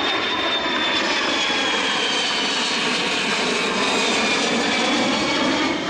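Kawasaki C-1 transport's twin Pratt & Whitney JT8D turbofan engines passing low and close: a steady jet roar with a high whine that slowly falls in pitch as the aircraft moves away.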